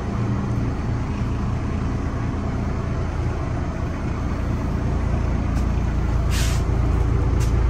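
A steady low mechanical hum with a brief hiss about six and a half seconds in.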